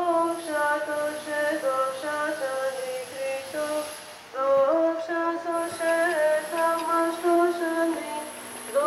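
Female singing: a slow melody of long held notes, in two phrases with a short pause about four seconds in.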